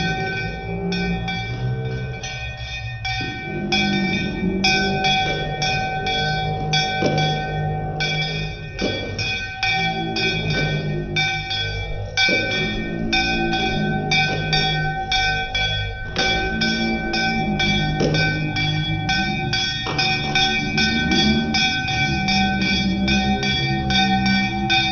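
A metal hand bell rung in fast, continuous strokes during a Hindu aarti, ringing steadily, with voices singing the aarti and hands clapping along.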